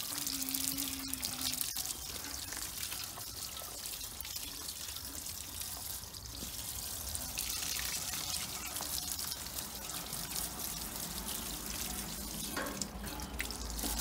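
Garden hose spraying water onto the grille and coil fins of an outdoor air-conditioner condenser unit: a steady hiss and splatter of water.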